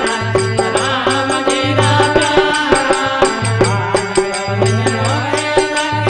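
Devotional folk bhajan music with no singing: a melody line with gliding notes over a fast, steady percussion rhythm of rattling strokes and a low bass note that comes and goes.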